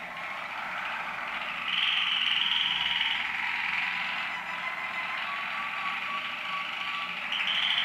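Waterslager canaries singing: a continuous song of rolling trills, with a higher, brighter trill from about two to three seconds in and again near the end.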